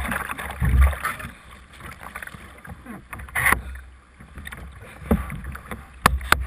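Kayak paddle strokes splashing water close to a bow-mounted camera, with gusty wind rumbling on the microphone in the first second. There is a loud splash about three and a half seconds in and two sharp knocks near the end.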